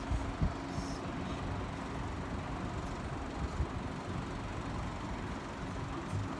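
Steady low rumble of vehicle engines and traffic, with a faint steady hum running through it.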